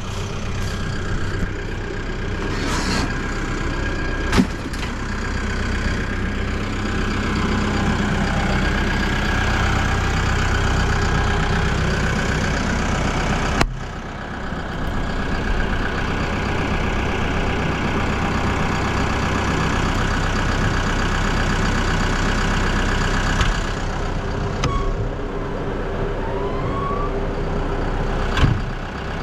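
Bulldozer's diesel engine running steadily while it pushes a wooden shed over, with a few sharp knocks and cracks near the start and again near the end. The sound briefly dips about halfway through.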